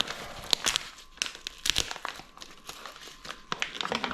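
A large bag of gram flour being handled and opened, its packaging crinkling in a string of irregular crackles.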